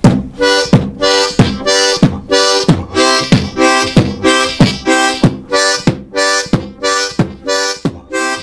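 Beatboxed kick drum (a plosive "B" from the mouth) alternating with harmonica chords on holes 1–2–3 of a diatonic blues harp. The chords switch between inhaled and exhaled breaths in a steady rhythm of about three beats every two seconds.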